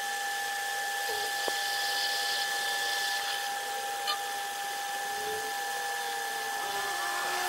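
Metal lathe turning a steel shaft with its cutting tool taking a cut: a steady whine of two held tones over a high cutting hiss, with a wavering lower tone from the cut and a small click about four seconds in.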